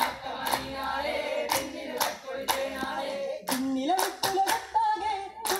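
Vattappattu troupe singing together with rhythmic hand clapping. The claps come about once a second, then quicken to about three a second in the last second and a half, over a held sung line that steps up in pitch about three and a half seconds in.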